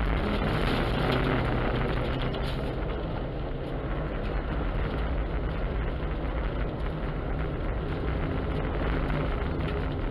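Opel car's engine running steadily under way, heard from inside the cabin, with a continuous rush of the tyres ploughing through loose snow.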